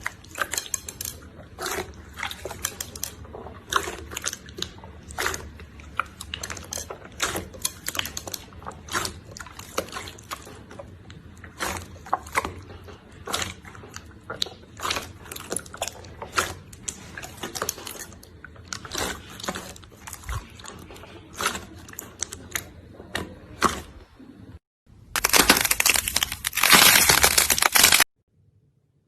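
Slime being squished and pressed by hand, giving a run of small wet pops and clicks. Near the end a louder, continuous crackling noise lasts about three seconds, then the sound cuts off.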